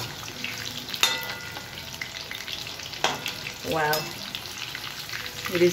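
Marinated chicken pieces deep-frying in hot oil in a metal kadai, a steady sizzle throughout. A perforated metal slotted spoon stirs them and clinks against the pan twice.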